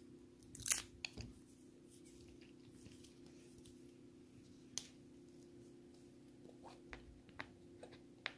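Paper candy wrappers crinkling and crackling in the fingers as Maoam Bloxx chews are unwrapped: a burst of crackles about a second in, then scattered light clicks.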